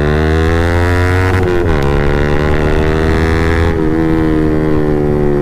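Yamaha MT-15's single-cylinder engine through an aftermarket Akrapovic full-system exhaust, loud, heard from the rider's seat while riding. The note climbs under throttle, dips once about a second and a half in at a gear change, climbs again, and turns smoother two-thirds of the way through.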